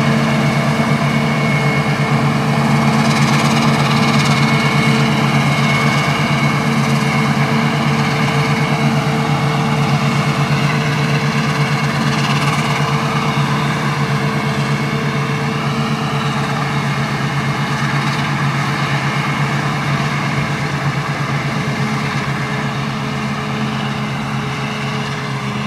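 New Holland FR9090 self-propelled forage harvester chopping maize for silage, with a tractor running alongside: a steady engine and cutterhead drone at constant pitch, slowly fading as the machines move away.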